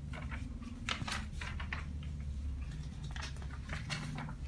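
Sheets of drawing paper being handled and shuffled, with light scattered rustles and taps over a steady low hum.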